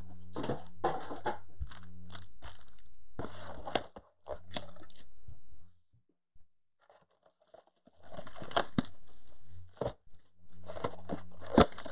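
Plastic-wrapped cardboard blaster boxes being handled and unwrapped: the wrap crinkles and crackles, with sharp clicks and taps of the cardboard. It falls quiet for about two seconds midway, then the handling starts again.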